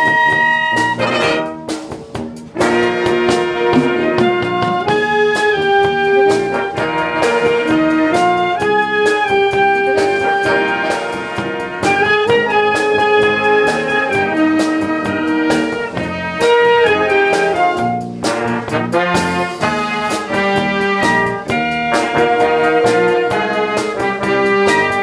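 Full concert band playing a bright, pop-style tune, with trumpets and trombones carrying the melody over tuba and band backing. There are short breaks in the sound about two seconds in and again near eighteen seconds.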